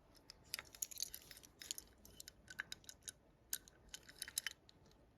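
Small toy cars being handled and picked through: faint, irregular light clicks and rattles that die away near the end.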